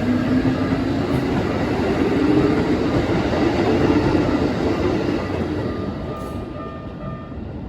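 Keikyu 1500 series electric train running past, its wheels and running gear making a dense rumble that dies away over the last couple of seconds as it leaves.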